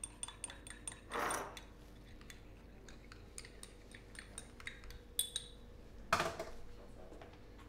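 Small metal utensils and cups clinking and tapping on a coffee bar counter: a string of light clinks, some ringing briefly. There are two short rushing or scraping noises, about a second in and, louder, about six seconds in.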